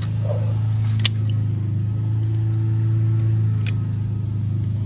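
Two sharp metallic clicks from a wrench working on brake caliper bolts, one about a second in and one near the end, over a steady low hum.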